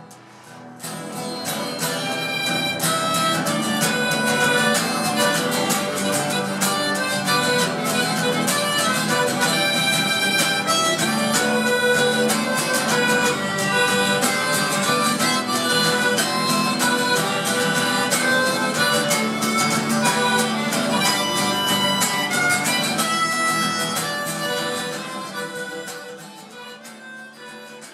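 Harmonica and strummed acoustic guitar playing a tune together, fading out over the last few seconds.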